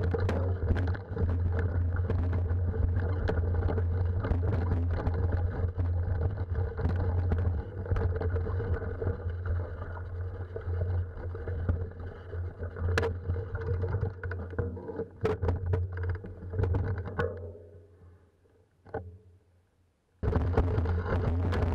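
Steady rumble and rattle of a mountain bike being ridden over a rocky track, with scattered sharp knocks. It fades to near silence about seventeen seconds in, then cuts back in abruptly near the end.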